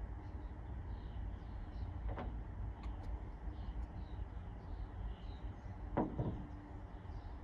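Plastic trout-bait jar being handled, with a couple of short clicks about two seconds in and again around six seconds in, over a steady low rumble of wind on the microphone and faint bird chirps.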